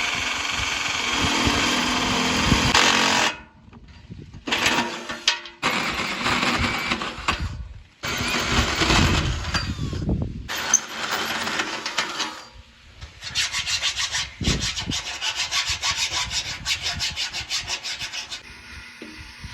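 A drill boring into a metal water main runs steadily and is cut off about three seconds in. Short clips of tools rubbing and scraping at the pipe follow, ending with a run of quick rhythmic scraping strokes near the end.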